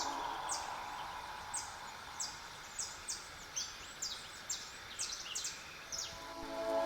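Faint bird chirps: a dozen or so short, high, falling notes at uneven spacing over a faint hiss. Music fades back in near the end.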